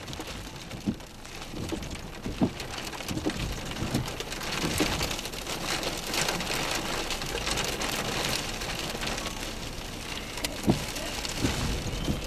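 Rain pattering on a vehicle's windshield and roof, heard from inside the cab: a steady hiss dotted with many sharp drop hits and a few dull knocks.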